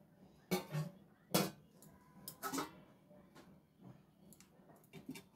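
A few light, scattered knocks and clicks at irregular intervals over quiet room tone.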